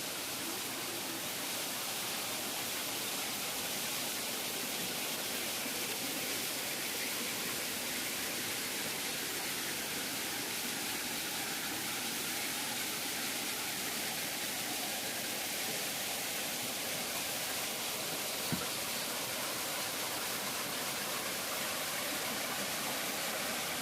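Steady, unbroken rush of falling water from a waterfall, with one brief click about three-quarters of the way through.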